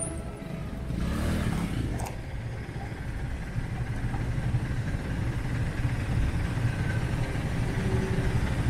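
Road traffic noise with vehicle engines running close by, a passenger jeepney's among them, and a single sharp click about two seconds in.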